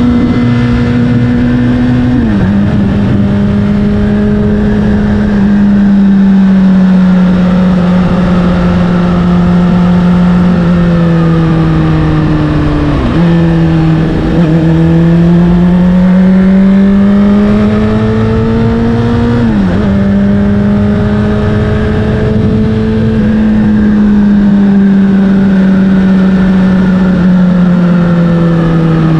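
Honda CBR600RR inline-four with an Akrapovic exhaust running under way at steady mid revs. The engine note drops sharply about two seconds in, sinks slowly over the next ten seconds, dips and climbs again, drops sharply once more like a gear change, then sinks slowly toward the end.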